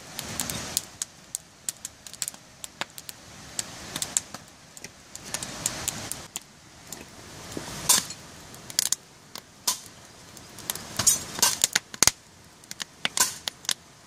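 Wood fire crackling in the stokehole of a wood-fired pottery kiln at full firing heat, about 900 °C, with sharp irregular pops over a rushing of flame that swells and fades.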